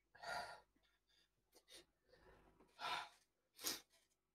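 A man breathing out hard three times, faint short sighing breaths, against the burn of very hot chilli ramen in his mouth.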